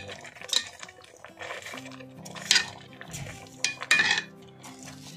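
Metal slotted spoon knocking and scraping against a large metal roasting pan while rice is spread over chicken for pilaf: several sharp clanks a second or so apart.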